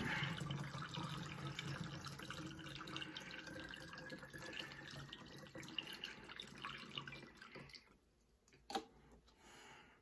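Water poured from a pot through a funnel into a tall clear lamp tank, a steady splashing pour with a faint tone that rises slowly as it goes. The pour stops about eight seconds in, and a single short knock follows.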